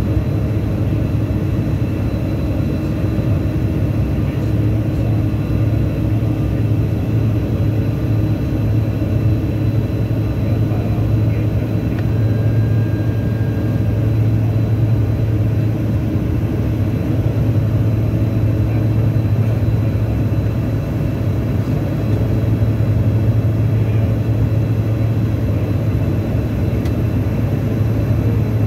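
Steady cabin drone inside a CRJ-900 regional jet climbing out after takeoff: the rear-mounted GE CF34 turbofans and the airflow, a strong low hum under an even rush with a faint high whine.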